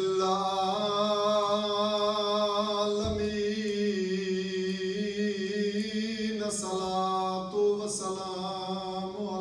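A man's voice chanting a Shia devotional lament in long, drawn-out held notes, with short breaks between phrases about three and six and a half seconds in.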